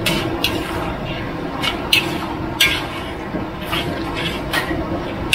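A metal wok spatula scraping and knocking against an aluminium wok while a saucy shrimp-and-pork stir-fry is stirred, about eight short strokes at irregular intervals. A steady noisy background runs underneath.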